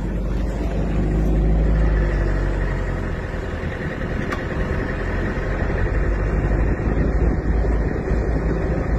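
Road noise from a moving vehicle: steady engine and tyre rumble with wind buffeting the microphone, heard through a phone held out of the side window.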